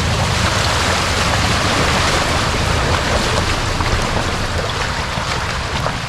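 Off-road 4x4 fording a deep water-filled trail hole: water surges and splashes steadily around the body, up to the doors, over the low rumble of the engine.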